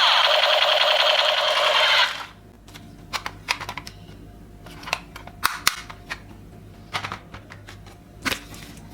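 Music that cuts off suddenly about two seconds in, followed by scattered light clicks and taps of plastic toys being handled.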